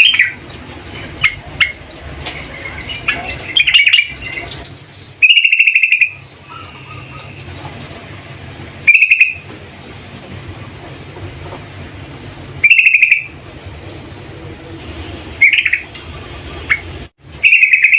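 Yellow-vented bulbul (trucukan) calling: chattering notes at first, then short, loud, bubbly phrases repeated every three to four seconds, over a steady low hum.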